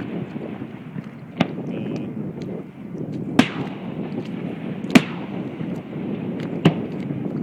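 Fireworks shells bursting in the air: four sharp bangs about a second and a half apart, the middle two loudest, with a few fainter pops, over a steady low background rumble.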